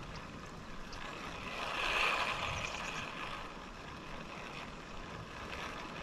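Steady rushing of river water, swelling for a moment about two seconds in.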